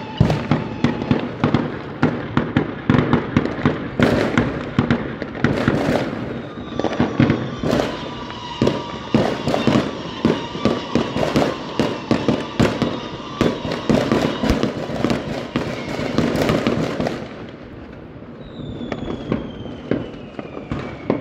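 Many fireworks going off, a dense run of bangs and crackling from bursting rockets and firecrackers. It thins out about three-quarters of the way through, and then a few falling whistles of rockets can be heard.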